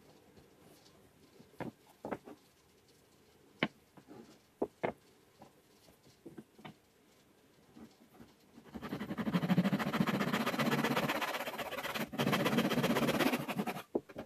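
Fine-toothed handsaw cutting through wood in a wooden miter box: rapid back-and-forth rasping strokes for about five seconds, with a brief break partway. Before it come a few scattered light knocks and clicks.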